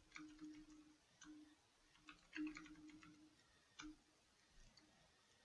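Faint typing on a computer keyboard: several short runs of key clicks, ending with a single click about four seconds in.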